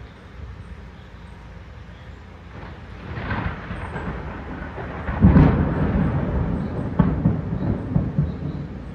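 Rolling thunder: a low rumble builds about three seconds in, peaks sharply a couple of seconds later, then rumbles on with sharp crackles before easing near the end.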